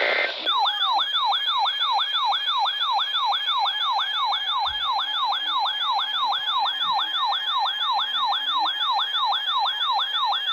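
Electronic siren-style alert tone between emergency weather broadcasts: a fast yelp of falling sweeps, about three a second, starting about half a second in.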